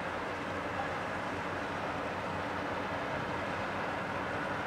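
Steady low drone of tugboat diesel engines pushing a ship, under an even hiss of churned water and wind.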